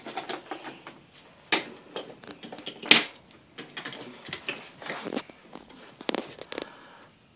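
Wooden toy trains and track pieces clacking and knocking as a toddler handles them on a wooden train table. The clicks come irregularly, with a louder knock about three seconds in.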